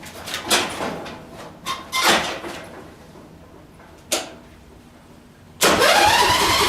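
A few clanks and knocks of metal parts being handled, then about five and a half seconds in a small tractor engine starts up when a jumper power pack is applied directly to the starter, bypassing a failed ignition switch. Its pitch rises quickly and settles into a steady run.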